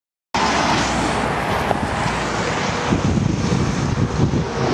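Steady rush of highway traffic passing under the bridge, with wind buffeting the microphone.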